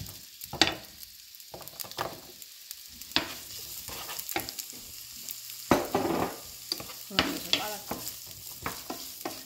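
Diced red onion sizzling in hot oil in a nonstick frying pan, with a wooden spoon stirring it in irregular scrapes and knocks against the pan.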